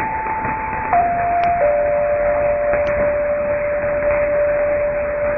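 Danmarks Radio's longwave interval signal heard on AM at 243 kHz: a pure electronic tone that steps down in pitch twice and then holds its lowest note for several seconds. Behind it is steady reception hiss with a few sharp crackles.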